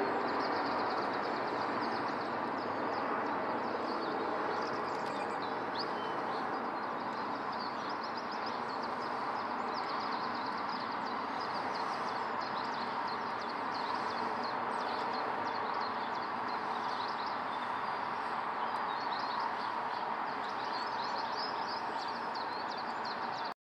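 Boeing 777-200LR airliner's twin GE90 jet engines heard from the ground on approach: a steady distant rumbling hiss that fades slowly as the aircraft flies away. Small birds chirp throughout.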